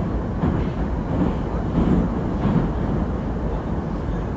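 Moscow Metro train running, heard from inside the moving carriage as a loud, steady low rumble.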